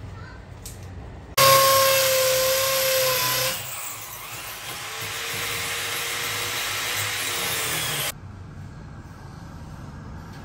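Power drill running with a steady whine, starting abruptly about a second and a half in. It is loudest for the first two seconds, then runs quieter with the whine sagging slightly, and stops suddenly about eight seconds in.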